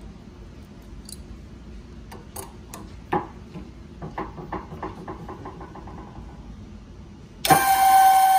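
A run of light metal clicks and taps as the relief-valve adjustment is worked. Then, near the end, the 12-volt hydraulic pump's electric motor starts suddenly and runs with a loud steady whine. It is pushing against its pressure relief valve, which is set at about 3,000 PSI.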